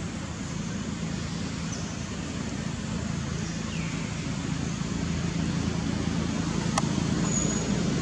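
Steady low rumble and hiss of road traffic, slowly getting louder, with a faint short glide about four seconds in and a single sharp click near the end.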